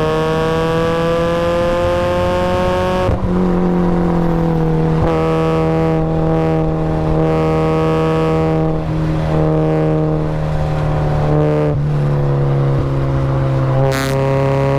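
Supercharged Mazda Miata's four-cylinder engine pulling hard on track, its pitch climbing and then dropping at a gear change about three seconds in. The engine note holds and shifts several more times through the rest of the lap section, with a short click near the end.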